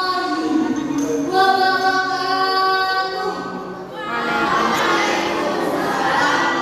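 Children's choir singing, holding long notes, then moving into a fuller-sounding phrase about four seconds in.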